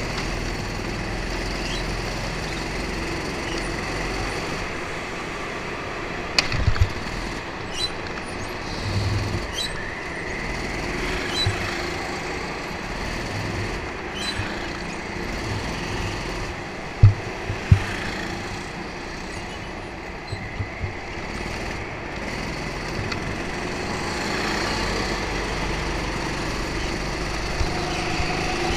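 Go-kart engines running during a race, heard from on board a kart, the engine note rising and falling through the laps. A few sharp knocks stand out, one about six seconds in and two in quick succession around seventeen seconds in.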